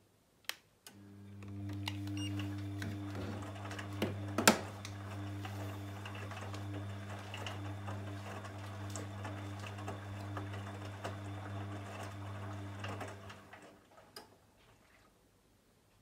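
Bosch VarioPerfect WAQ283S0 washing machine's drum motor turning the drum for one wash tumble of about twelve seconds in the main wash of a Cottons 40 programme: a steady hum with sloshing and clicks from the wet load, starting about a second in and stopping near the end. A sharp click about four and a half seconds in is the loudest moment.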